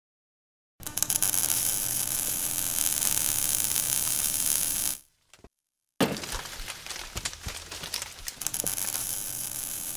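Logo-intro sound effect: an electric buzz with a low hum and crackling static starts about a second in and cuts off suddenly about five seconds in. About a second later comes a sharp hit, followed by crackling and clicks.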